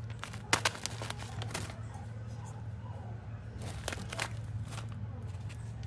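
Scattered sharp clicks and light crinkling from small objects being handled on a work surface, over a steady low hum.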